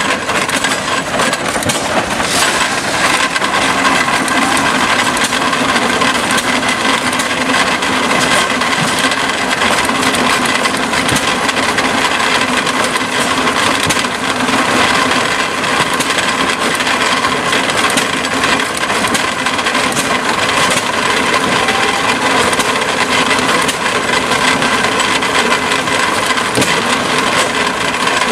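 Antique Letz feed grinder running steadily while it grinds shelled corn, a constant loud mechanical din with a dense rattle of kernels through the mill.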